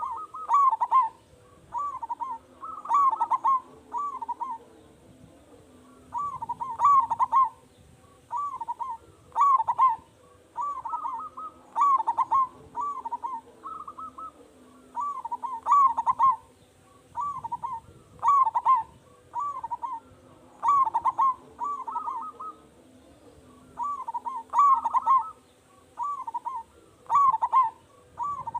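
Local zebra dove (perkutut) cooing over and over: short phrases of rolling, throaty notes around one pitch, repeated every two to three seconds. It is a bird in steady full song with a big voice.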